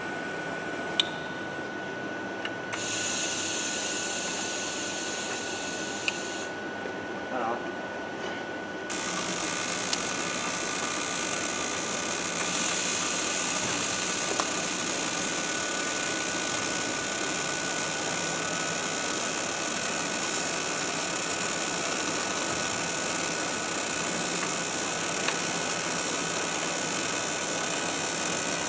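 Steady industrial noise of a large metal fabrication shop, with a constant thin high whine running through it. The noise changes abruptly a few times, then turns louder and hissier from about nine seconds in.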